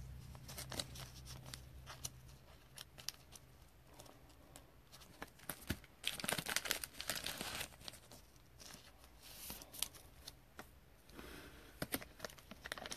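Faint crinkling of a clear plastic card-pack wrapper and light clicks of trading cards being handled. It comes in short bursts, the strongest about six seconds in and another near the end.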